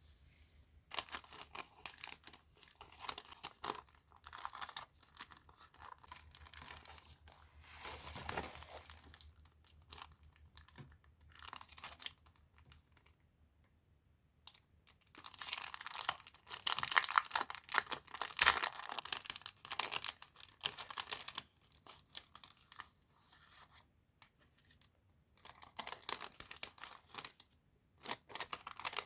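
Packaging being handled and torn open: irregular crinkling and tearing in bursts, with a brief lull before the loudest stretch about halfway through.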